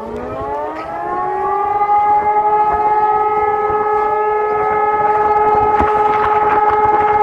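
Civil-defence siren sounding a test alarm: it winds up, its pitch rising over about two seconds, then holds a steady tone. A steady tone at the same pitch is already sounding underneath as it starts.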